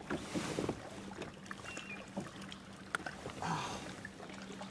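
Rustling and small clicks of a fish being handled and unhooked in a kayak, with soft swishes near the start and again near the end, over a faint steady hum.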